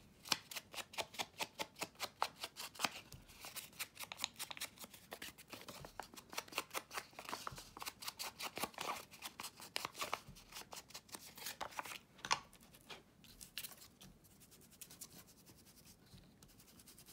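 A worn ink pad dabbed and rubbed quickly against paper edges to distress them with ink, making quick, regular scratchy strokes several a second that thin out about twelve seconds in.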